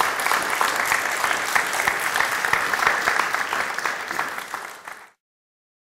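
Audience applauding, a dense stretch of many hands clapping that tapers slightly and then cuts off suddenly about five seconds in.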